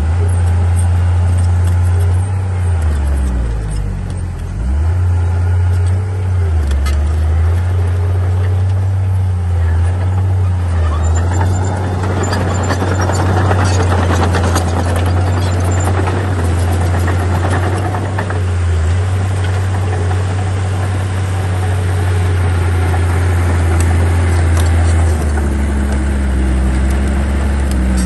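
Komatsu D37P crawler bulldozer's diesel engine running under working load, a steady low drone that sags briefly a few times. Between about 12 and 18 seconds a denser clattering rattle rises over it.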